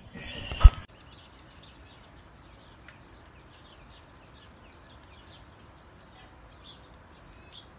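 A door thumps shut just under a second in, then faint, rapid bird chirping, many short quick chirps.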